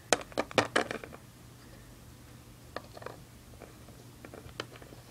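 Small plastic toy figurines and doll furniture being handled and set down on a plastic playset floor: a quick run of sharp clicks and taps in the first second, a couple more about three seconds in, and a few light ticks near the end.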